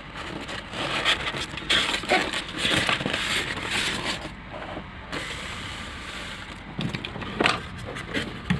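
Packaging being opened slowly by hand: irregular rustling, crinkling and scraping of cardboard and plastic wrap.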